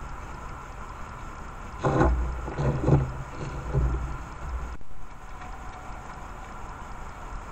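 A deer moving right up against a trail camera makes a few seconds of loud, low thumps and rustling close to the microphone, over the camera's faint steady hiss and hum.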